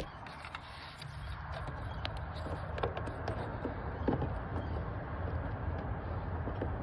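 Scattered light clicks and taps of an H7 LED headlight bulb and its plastic connector being handled and fitted into the headlight housing, over a steady low background rumble.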